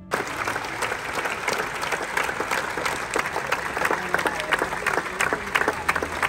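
Large theatre audience applauding, a dense, steady clatter of many hands clapping that breaks in suddenly as the orchestral music stops.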